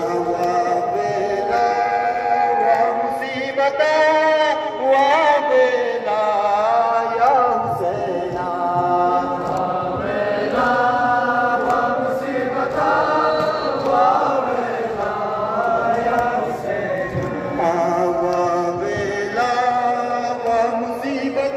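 A crowd of mourners chanting a noha, the Muharram lament, together in a steady sung rhythm.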